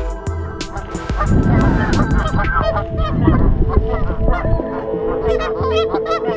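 A flock of Canada geese honking, many calls overlapping and coming thicker from about two and a half seconds in.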